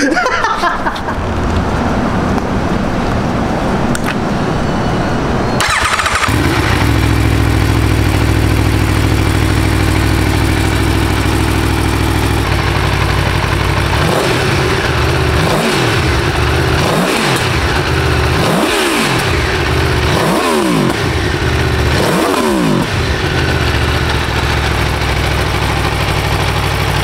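Aprilia Tuono V4 1100 Factory's V4 engine idling, with a sudden change about six seconds in, after which a steady idle holds. In the second half it is revved in about five quick throttle blips, each rising and falling in pitch, before settling back to idle.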